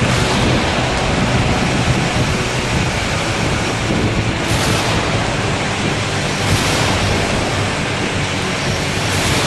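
Ocean surf rolling onto a sandy beach, a steady loud rush that swells a few times as waves break.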